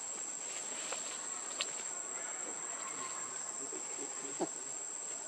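Insects droning steadily at a single high pitch, with two short clicks, the sharper one about four and a half seconds in.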